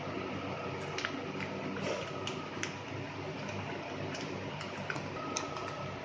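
Newspaper sheet rustling and crackling in a few irregular snaps as hands fold and roll it, over a steady background hum.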